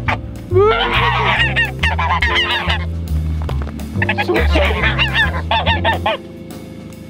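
Several geese honking repeatedly in short overlapping calls over background music with a stepping bass line. The bass drops out about six seconds in.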